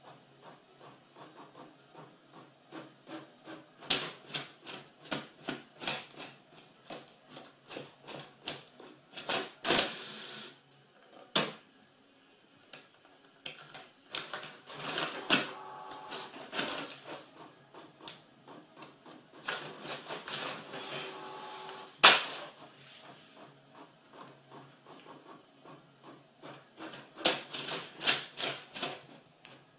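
A printer working: rapid, irregular mechanical clicks and clacks, broken by a few longer stretches of steady motor whirring.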